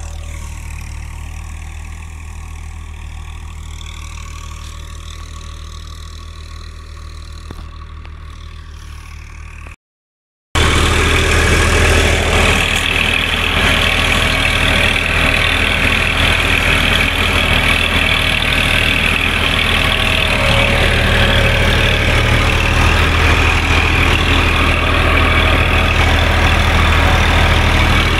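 Massey Ferguson tractor's diesel engine running steadily under load, pulling a plough through the soil. For about the first ten seconds it is quieter; after a brief cut it is loud and close, heard from the driver's seat.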